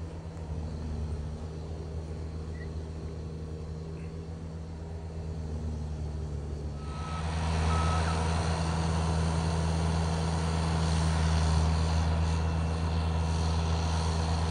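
Skid-steer loader's engine running steadily while it clears snow. About seven seconds in, its reversing alarm beeps twice and the machine noise grows louder.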